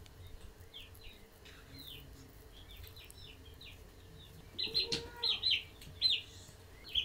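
Chickens calling: short high chirps, scattered at first and then a quick, louder run of them about four and a half seconds in, over a faint steady low hum.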